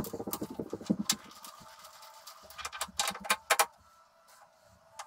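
Metal clicks, clacks and knocks from hand-work at an old metal lathe's headstock and chuck, with a quick rattling patter in the first second and a cluster of clacks about three seconds in; the lathe's motor is not running.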